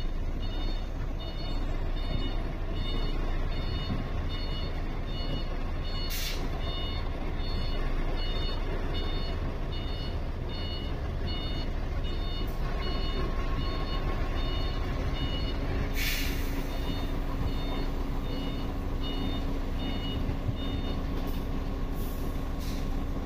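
Lowbed truck reversing: its reversing alarm beeps steadily over the diesel engine running, with a short hiss of air from the air brakes about six seconds in and a longer one around sixteen seconds.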